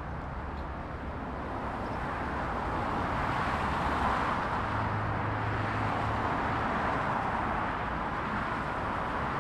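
Dense motorway traffic close by, many cars passing in a continuous wash of tyre and engine noise that swells over the first few seconds and stays steady.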